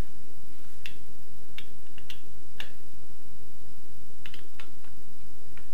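Hand screwdriver clicking and tapping against screws and a metal drawer slide as the slide is screwed onto a wire bottle-rack frame: scattered sharp clicks, three of them close together near the middle.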